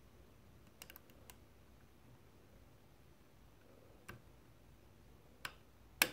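Sparse small metallic clicks of a hook pick and tension wrench working the pin stack of an Abus Titalium TI12 half cylinder as the pins are set: a few about a second in, single ones later, and the sharpest click near the end.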